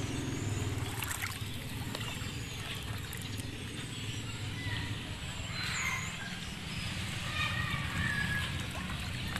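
Small waves lapping and sloshing on a stony shore, over a low steady hum.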